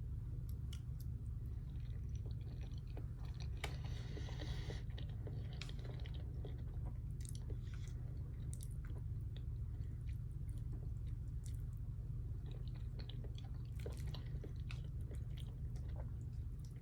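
A person chewing food close to the microphone, with many small wet mouth clicks throughout and a brief rustling hiss about four seconds in, over a steady low hum.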